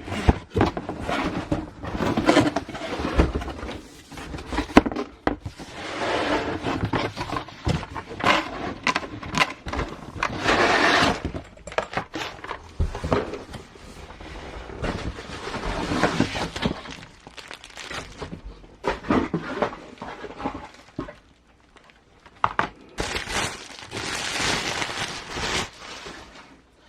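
Cardboard box and plastic packaging being handled: irregular crinkling, crackling and scraping with occasional knocks as parts are taken out.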